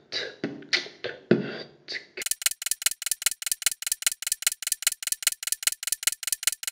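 Beatbox-style percussive beat of short, punchy hits, which about two seconds in gives way to a fast, even, thin ticking at about seven ticks a second.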